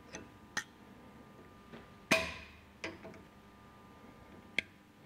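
Circlip pliers and a steel ring lock (circlip) clicking against the pump shaft and bearing as the ring lock is fitted: about six sharp metallic clicks, the loudest about two seconds in with a short ring.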